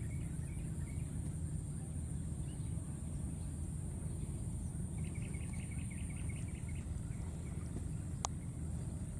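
Rural outdoor ambience: a steady low rumble under a constant high drone, with a quick run of about ten short chirps about five seconds in and one sharp click near the end.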